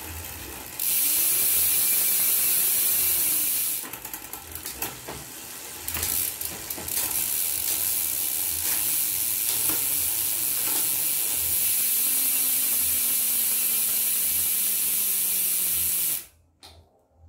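Bicycle drivetrain running with the rear wheel spun on the stand: the chain whirs and hisses over a 9-speed 11-46t cassette through a Shimano Sora rear derailleur, with ratchet-like ticking. A cluster of clicks comes about four to seven seconds in, as gears are shifted, and the running cuts off suddenly near the end.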